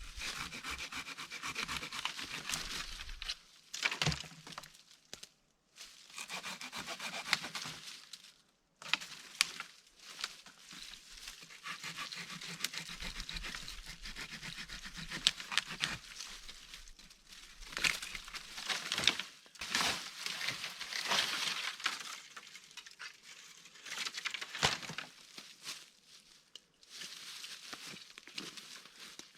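Footsteps crunching and rustling through dry ground cover, in uneven bouts with short pauses and the odd sharp crack.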